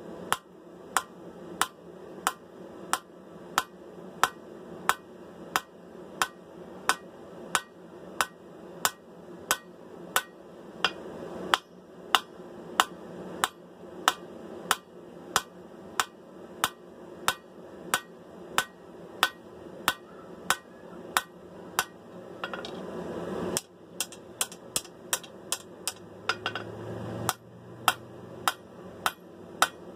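Hammer striking hot steel on an anvil, forging the bevels and tip of a sword blade. Sharp, regular blows about two a second, quickening briefly near the end, over a steady background noise.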